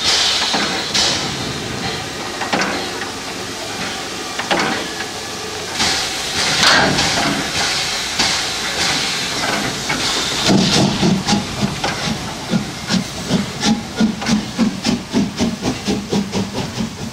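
Steam hissing from a metre-gauge 2-10-2 steam tank locomotive, HSB 99 7241-5. About two-thirds of the way in, it starts its exhaust beats as it pulls away, about three chuffs a second, with its open cylinder drain cocks hissing.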